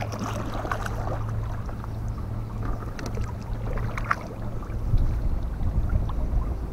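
A kayak moving on a river, with a few short splashes from the paddle about three, four and five seconds in, over a steady low wind rumble on the microphone.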